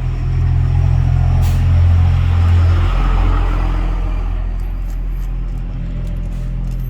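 Low, steady rumble of a motor vehicle, swelling about two seconds in and easing off again. A few small clicks and taps come near the end.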